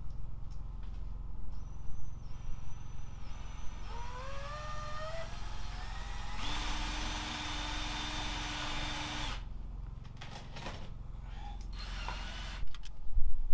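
Power drill running. Its pitch rises for a couple of seconds, then it holds steady for about three seconds and stops, followed by a few clicks.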